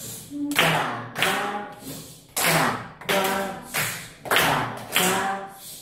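A class of children clapping a rhythm pattern in unison, about nine claps spaced roughly half a second apart with a short break near two seconds in.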